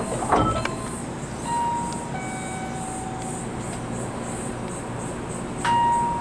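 Electronic two-note chime at a train stop, alternating a higher and a lower steady note every second or two, with a click and a louder note near the end. A faint high pulsing buzz of insects and a low hum run underneath.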